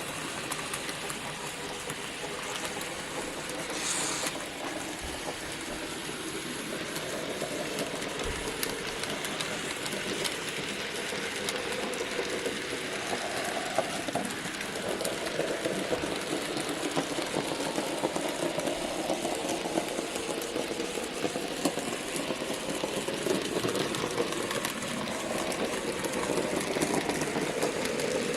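N gauge model trains running on the layout: the hum of small electric loco motors with wheels clicking steadily over the track, growing louder toward the end. A brief high squeak about four seconds in.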